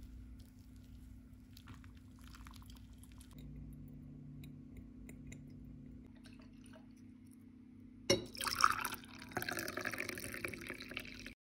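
Pour-over coffee being made: hot water trickling in a thin stream onto grounds in a paper filter, with faint dripping over a steady low hum. About eight seconds in, brewed coffee is poured into a ceramic cup, the loudest part, until the sound cuts off.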